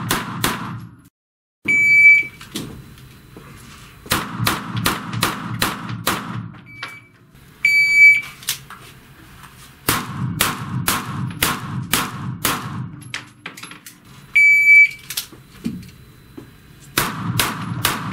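Handheld shot-timer beeps, three of them, each followed about two seconds later by a string of pistol shots in quick succession that echo off the range walls.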